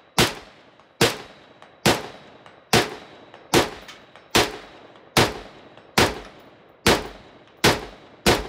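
Zastava M85 PAP 10-inch AK pistol in 5.56, fitted with a KNS adjustable gas piston, firing semi-automatic at a steady pace. About eleven shots come a little under a second apart, each with a long echoing tail.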